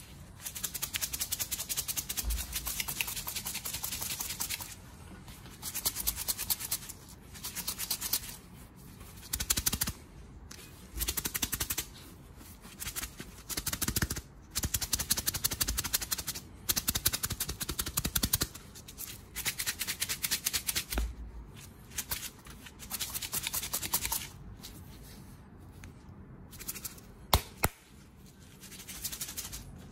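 Millet grains rattling inside a sealed plastic bottle of millet and liquor that is shaken hard back and forth, in spurts of a second or two with short pauses between, to mix the liquor through the grains for wine-millet groundbait. One sharp click near the end.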